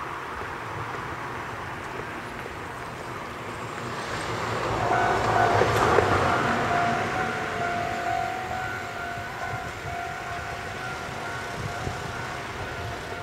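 A passing vehicle's rumble swells to a peak about six seconds in and then fades. A steady high whine starts about five seconds in and holds.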